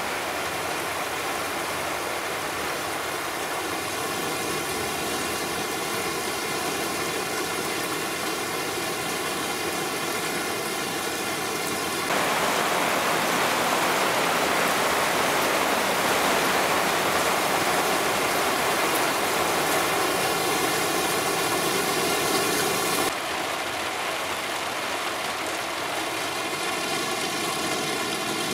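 Heavy cloudburst rain pouring onto asphalt and standing water, a steady dense hiss that grows louder for a stretch in the middle. Near the end a car's tyres swish through the flooded road.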